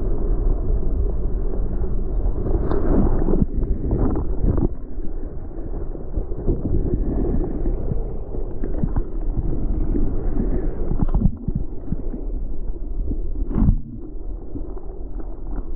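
Breaking wave pouring and churning around a GoPro in a surfing barrel: a loud, deep, steady rush of whitewater and wind on the microphone, with a handful of sudden knocks as water hits the camera.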